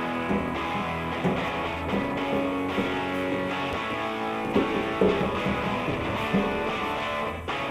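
Background music with guitar playing steadily.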